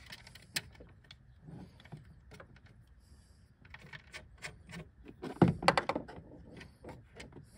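Small clicks and rattles of cable ring terminals and screw-on terminal caps being handled and fitted to a power inverter's terminal posts, with a louder run of clicks a little over two-thirds of the way in.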